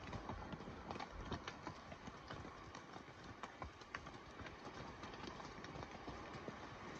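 Horses' hooves clopping on a rocky trail at a walk: irregular sharp knocks of hooves on loose stone.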